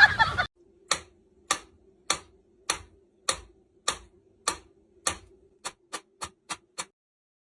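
A series of sharp ticks, evenly spaced at first, about every 0.6 seconds, then quickening to about three or four a second before stopping suddenly, over a faint steady hum.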